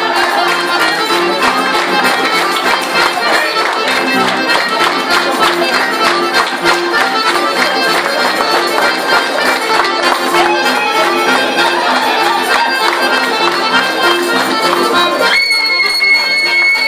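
Lively Balkan folk kolo dance music led by accordion, with a steady, driving beat. A high steady note is held for about two seconds near the end.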